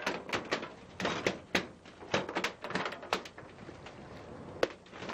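Irregular sharp knocks and clatter, several a second, as a freshly landed bigeye tuna is handled on a fibreglass boat deck, with one louder knock near the end.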